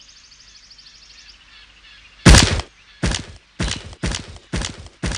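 Faint high chirring for the first second or so. Then, about two seconds in, a loud swishing rush, followed by a run of shorter rustling hits about two a second, like quick steps through grass and brush.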